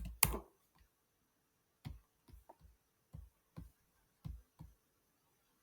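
About eight short, irregularly spaced clicks from a computer keyboard and mouse in use. The loudest comes just after the start, and the clicks stop near the end.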